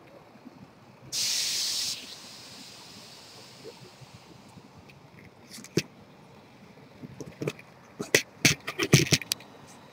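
A sharp hiss lasting about a second, then scattered clicks and knocks that bunch together near the end, like handling noise on a handheld camera being swung around.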